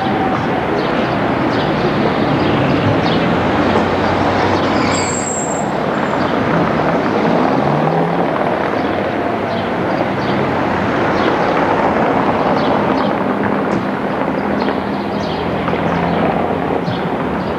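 Articulated street tram rolling through a junction on curved track amid passing car traffic, with a brief high wheel squeal about five seconds in and light clicking of wheels over the track joints later on.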